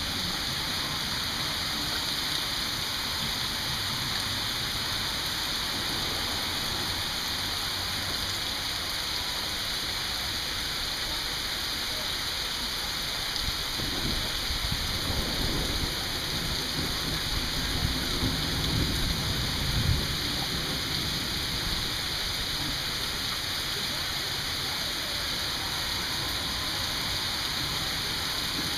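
Steady rain falling, an even hiss throughout. A low rumble of thunder builds through the middle and peaks about twenty seconds in.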